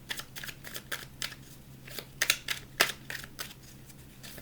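Tarot cards being shuffled and handled: irregular crisp snaps and slaps of cards against each other, with two louder snaps a little past the middle.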